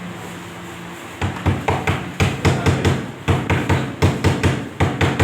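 Rapid hammer blows, about six a second in quick runs with brief breaks, starting about a second in.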